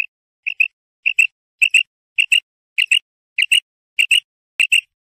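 Female common quail calling: a short pair of high notes repeated evenly about every half second, eight or nine times, then stopping just before the end. This is the female's call that hunters use as a lure.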